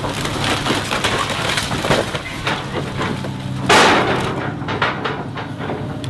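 Komatsu excavator's grapple crushing the roof of a car: repeated cracking and crunching of metal and glass, with one loud crash about four seconds in, over the steady drone of the excavator's diesel engine.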